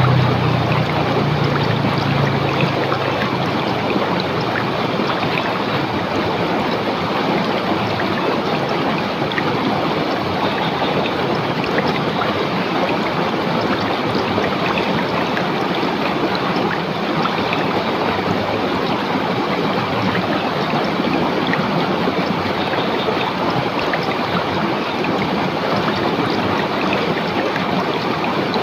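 River water rushing over rocks: a steady, even rush, with a low rumble under it that fades within the first few seconds.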